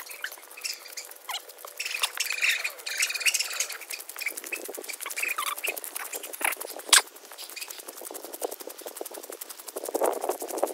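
Footsteps of two people walking on a gravel road, sandal and shoe soles crunching and scuffing in irregular small clicks, with one sharper click about seven seconds in.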